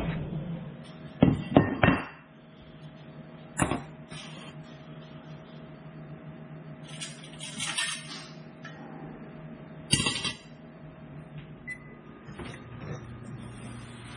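Scattered sharp knocks and clinks of cookware and crockery being handled: three in quick succession about a second in, then single ones later, over a low steady hum.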